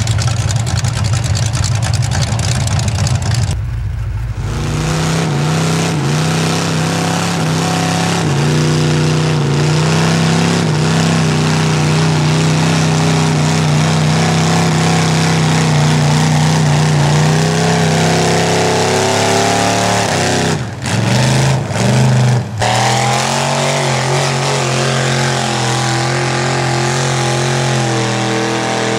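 Off-road vehicle engine running hard at high revs. It holds a steady pitch for long stretches, then shifts lower, and breaks off abruptly a few times in the latter half.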